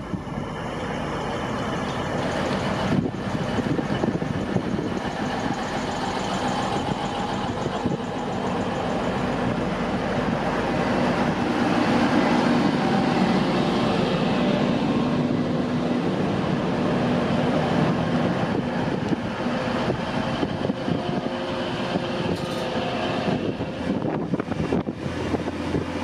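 TransPennine Express Class 185 diesel multiple unit running alongside the platform: steady diesel engine drone with wheel and rail noise, building over the first dozen seconds and then holding.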